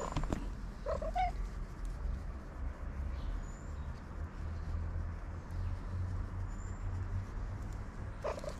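Tabby cat giving a short rising meow about a second in and another brief meow near the end, over a low steady rumble.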